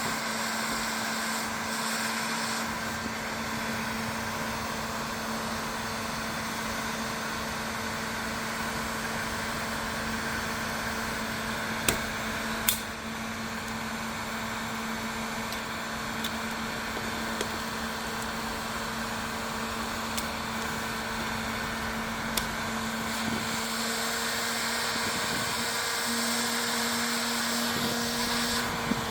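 Heat gun running steadily, its fan motor giving an even hum and blowing hiss, used to soften the headlight's plastic for cutting. Two short sharp clicks come about twelve seconds in.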